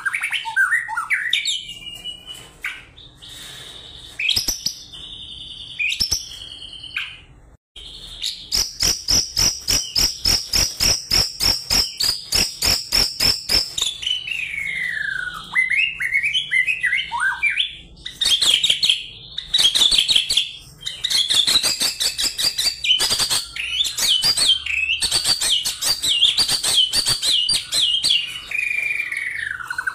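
White-rumped shama singing its full, energetic fighting-style song. Varied whistles and swooping notes give way, at about 8 s, to a long run of sharp repeated notes at about four a second. After that come more whistles and fast rattling trills.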